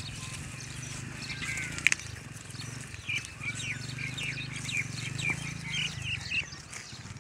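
Small birds chirping over and over in short, high, falling notes above a steady low hum, with one sharp click a little before two seconds in.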